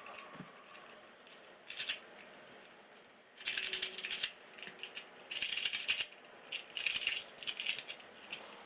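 A 2x2 Rubik's cube being turned quickly during a speed solve: the plastic layers click and rattle in short bursts of rapid turns, with brief pauses between them.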